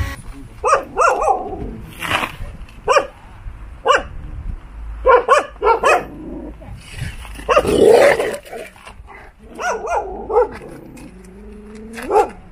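Dogs barking repeatedly, about a dozen short barks at irregular intervals, some close together in pairs.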